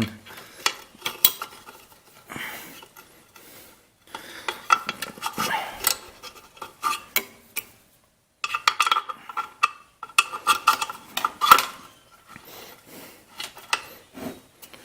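Metal parts of a Briggs & Stratton L-head engine clinking and scraping as they are handled inside the open crankcase: a string of sharp clicks, with two longer stretches of scraping and rattling.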